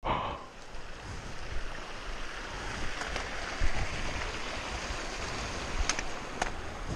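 Small mountain stream rushing down a rocky channel, a steady hiss of running water. A few sharp taps sound near the end.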